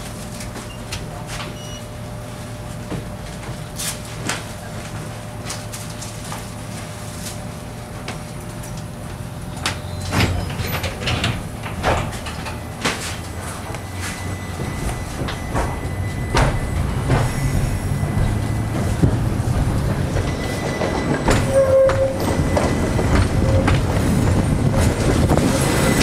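Tatra T3K tram, heard from inside the passenger cabin: a steady hum while standing, with scattered clicks and knocks, then the rumble of the motors and wheels on the rails growing louder as it gets under way.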